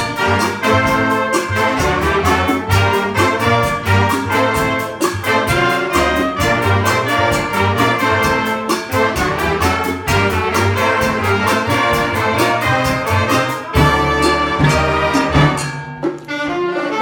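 Student jazz ensemble playing, trumpets and trombones carrying the tune over a steady beat of percussion strikes. The band cuts off briefly near the end and then comes back in.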